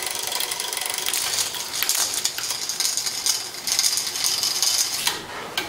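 Bicycle drivetrain spinning: a continuous fast run of chain and gear clicking and rattling, which eases off briefly near the end.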